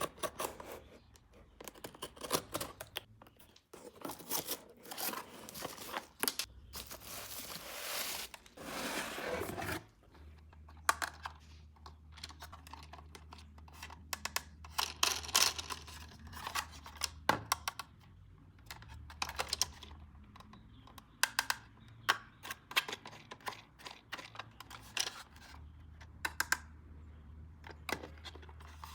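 Toy packaging being handled and opened: plastic and cardboard tearing and crinkling, then a run of light clicks and taps of hard plastic parts. A steady low hum runs under the clicks from about a third of the way in.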